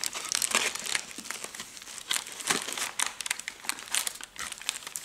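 Crinkling and rustling of thin nitrile gloves being pulled from their cardboard dispenser box, a run of quick, irregular crackles and scrapes.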